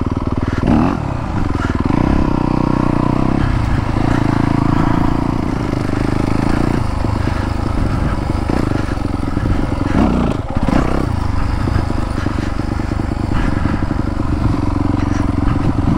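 Yamaha YZ250FX's 250 cc single-cylinder four-stroke engine running in first gear under changing throttle, revving up and back down about a second in and again near the middle, as the dirt bike is ridden over a trail obstacle, with some clatter from the bike.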